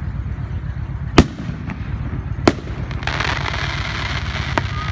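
Aerial fireworks shells bursting: a sharp bang about a second in and another about two and a half seconds in, then a steady crackling hiss from about three seconds in, over a steady low rumble.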